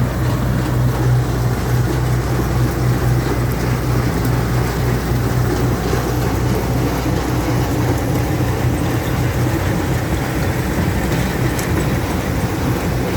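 Combine harvester running while harvesting barley: a loud, steady machine noise with a strong low hum that eases somewhat about two-thirds of the way through.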